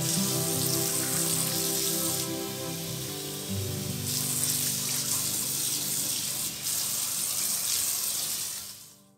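Water running from a kitchen faucet into a sink, the thin stream splashing on the basin, swelling and easing a few times. Soft background music plays underneath, and both fade out near the end.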